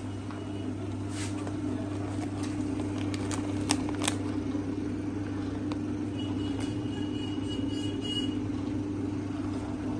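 Continuous band sealer running with a steady motor hum from its drive as a plastic pouch is carried through the sealing head. A few sharp crinkles of the pouch film come about three to four seconds in.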